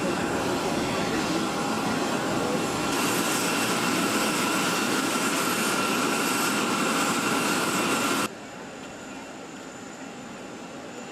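Steady jet aircraft noise, a loud roar with a high whine running through it. It cuts off suddenly about eight seconds in, leaving a much quieter background.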